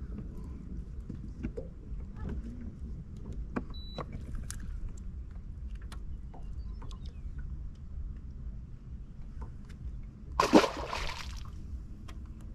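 Sounds around a small fishing boat on the water: a low steady hum with scattered small knocks and clicks, a short high beep about four seconds in, and a brief louder rush of noise about ten seconds in.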